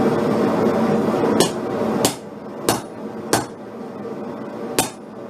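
Hand hammer striking a hot steel bar set over a hot-cut tool, five separate blows that cut the bar through. A steady rushing noise under the first blows drops away about two seconds in.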